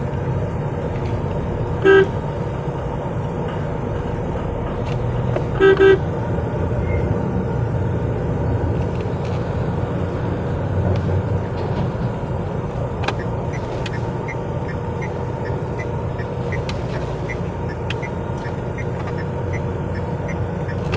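Steady engine and road noise inside the cabin of a moving Mahindra Marazzo in traffic, with a car horn giving a short honk about two seconds in and a quick double honk about six seconds in.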